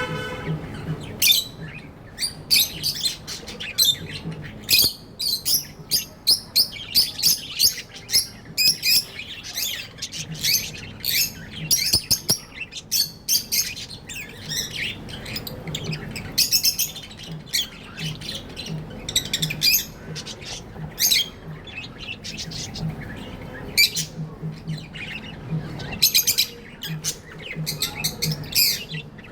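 Budgerigars chirping and chattering in a busy stream of short, rapid, high-pitched calls, with a few squawks among them.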